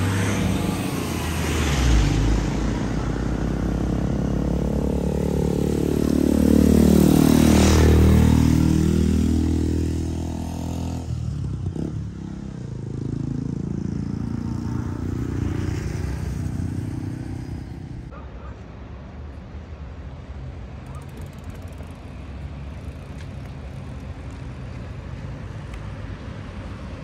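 Motor vehicles driving past on a road. One passes close about eight seconds in, its engine loudest and then dropping in pitch as it goes by, and a second, fainter vehicle passes a few seconds later. After that there is a quieter, steady road background.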